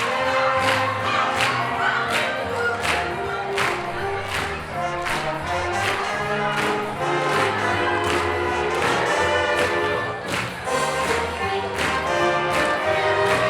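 Music with singing voices over a steady beat, about two beats a second.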